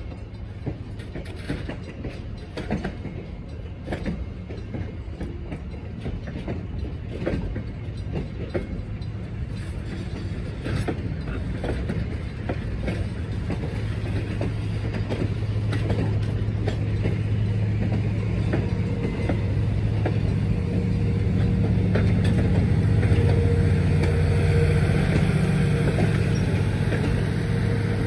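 Train rolling on the rails, wheels clicking repeatedly over rail joints. A steady low hum grows louder through the second half.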